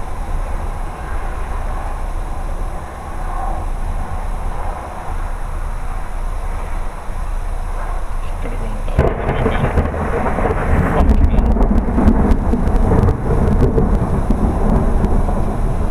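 Loud thunder from a nearby lightning strike: a sudden, heavy rumble breaks in about nine seconds in and keeps rolling, over steady low wind noise on the microphone.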